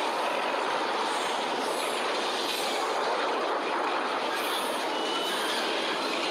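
Steady rushing wind of a tornado, a film sound effect.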